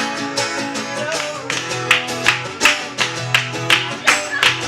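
Acoustic guitar strummed in a steady rhythm, about three strokes a second, playing an instrumental passage of a live song.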